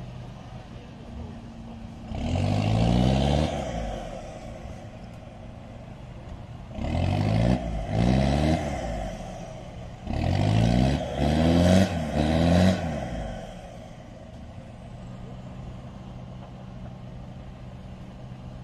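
Off-road 4x4's engine revved hard in three spells, each with repeated climbs in pitch, as it pushes through mud and water. A steady low engine hum runs underneath.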